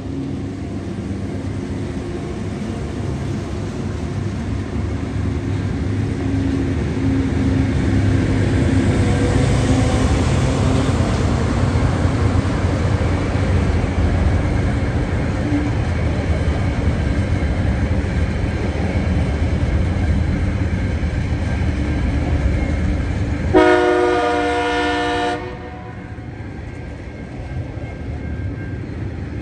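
TasRail freight train passing, led by TR class diesel locomotives: a steady low engine drone and rumble that swells as the locomotives go by, then wagons rolling past. About 24 seconds in, a loud horn blast of several tones sounds for under two seconds and cuts off sharply.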